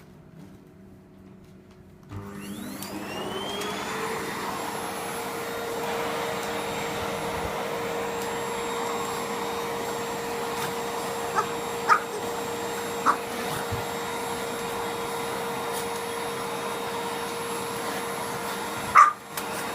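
Vacuum cleaner switched on about two seconds in, its motor spinning up with a rising whine and then running steadily. A few short sharp sounds cut through it, the loudest near the end.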